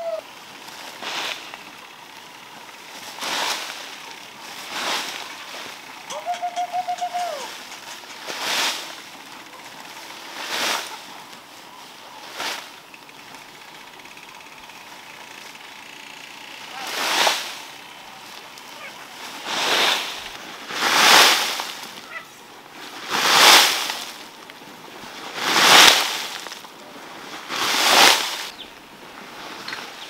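Water splashing in a string of separate swishes, roughly one every two seconds, growing much louder in the second half. A short, steady-pitched call sounds once about six seconds in.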